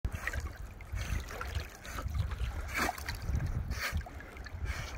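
Water lapping and splashing around a swimming Irish Wolfhound, with a couple of louder splashes about three and four seconds in, over a steady wind rumble on the microphone.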